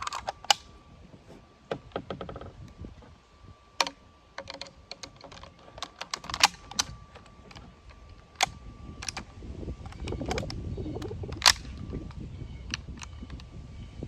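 Irregular sharp clicks and snaps of Schmidt-Rubin 96/11 rifle parts being handled and fitted together, with a low rumbling handling noise from about halfway through.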